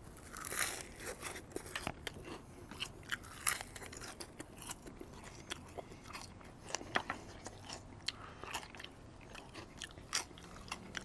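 A person crunching and chewing thin, extra-crispy matchstick fries: a loud cluster of crunches on the first bite about half a second in, then irregular crisp crackles as he chews and takes more fries.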